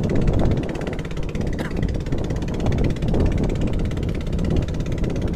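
Small fishing boat's engine running steadily while the boat is under way.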